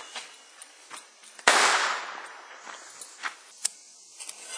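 A bottle rocket dropped down a pipe goes off with one sharp bang about a second and a half in, the sound dying away over about half a second. Two faint clicks follow a couple of seconds later.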